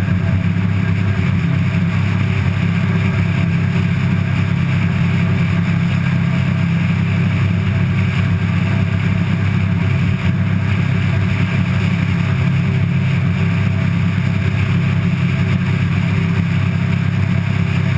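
Pilatus PC-6 Porter's engine and propeller running steadily at high power during take-off and climb-out.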